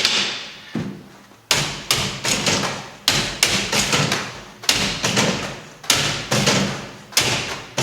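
Juggling balls repeatedly thudding against a juggling machine. There are a dozen or so sharp impacts at an uneven rhythm, some in quick pairs, each dying away over about half a second.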